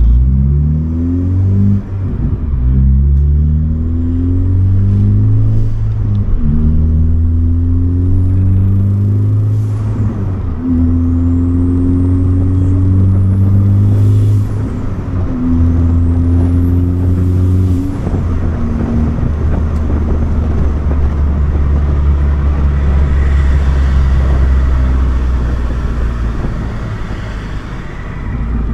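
Turbocharged 2.0-litre four-cylinder of a Ford Focus ST with a big rotated (SideWinder) turbo, accelerating hard through the gears. The engine note climbs in each gear with a gear change every few seconds. A high turbo whistle rises with the pulls, and the turbo spool is loud. In the last third the engine holds a steady note while cruising.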